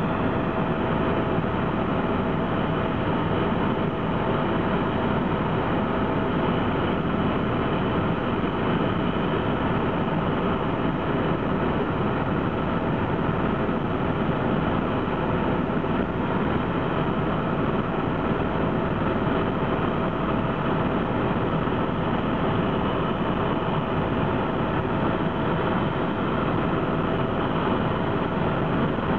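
Helicopter cabin noise heard from inside: a steady drone of engine and rotor with a constant whine.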